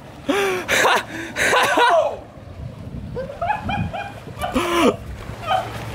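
Excited whoops, yells and laughter from a few people, in loud outbursts with a lull in between.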